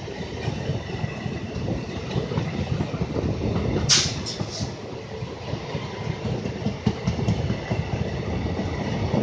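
Passenger coaches of an Indian Railways express train rolling past at speed, a steady rumble with the clatter of wheels over rail joints. About four seconds in comes a short, sharp, high-pitched sound with two quick echoes.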